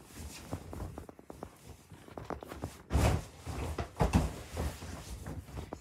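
Soft thumps and small creaks of a child flipping and landing on an air mattress, with the heaviest thud about three seconds in and more about a second later.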